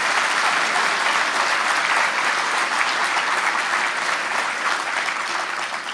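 Audience applauding, many hands clapping together, easing off slightly near the end.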